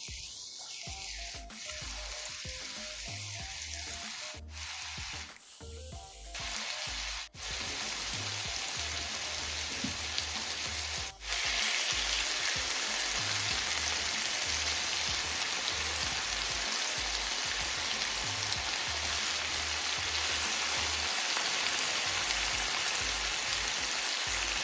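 Chicken breasts sizzling as they fry in hot coconut oil in a pan, a steady hiss that becomes louder and more even after about eleven seconds.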